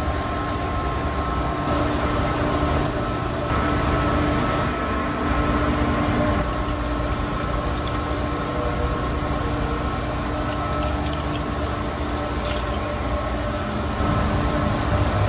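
Steady hum of mechanical-room machinery, with several steady tones over a low rumble and a few faint clicks.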